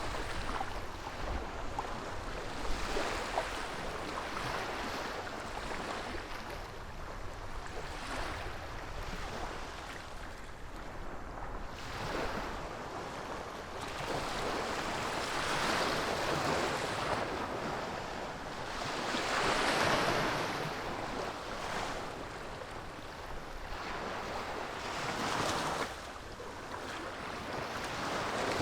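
Waves washing ashore, each wash swelling and fading over a few seconds, with wind blowing over the microphone.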